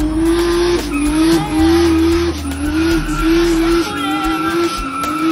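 Nissan V6 bakkie doing a burnout: the engine revs high, its pitch climbing and dropping back about once every three-quarters of a second as the throttle is worked. The rear tyres squeal as a steady high whine from about halfway through.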